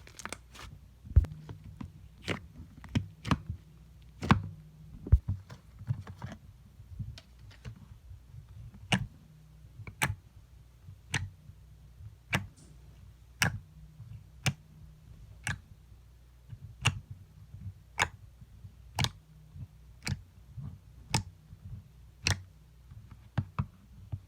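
Slime being squeezed and pressed by hand, giving a run of sharp clicking pops: quick and irregular at first, then settling to about one a second. A low steady hum runs underneath.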